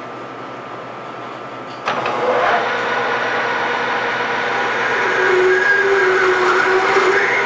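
Metal lathe switched on about two seconds in and running, turning a metal workpiece in a four-jaw chuck while a half-inch screw machine drill in the tailstock chuck starts cutting. A steady tone joins the running sound from about five seconds in as the drill bites.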